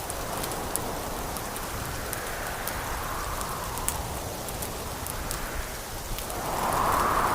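Wind blowing in slow gusts that swell and die away every few seconds, the strongest rising near the end, with the sharp scattered crackles and pops of a wood fire throughout.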